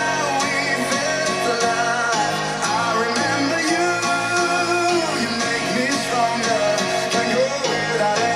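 Rock song with singing and guitar, played back through Boston Acoustics A23 bookshelf loudspeakers.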